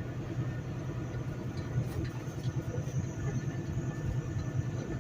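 Semi-truck's diesel engine running as the rig rolls slowly, a steady low rumble heard from inside the cab.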